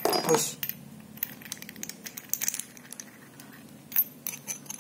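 Steel hole saw and drill arbor handled and fitted together by hand: scattered light metal clicks and clinks, with a louder clatter right at the start.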